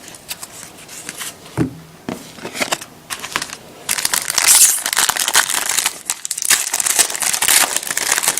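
Trading-card pack wrapper being handled and torn open: a few light clicks and crinkles at first, then continuous crinkling from about four seconds in.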